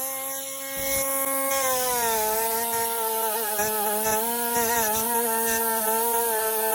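Handheld electric grinder cleaning a weld: a steady motor whine with a rasping hiss, its pitch dropping a little about two seconds in and wavering after that as the tool works the metal.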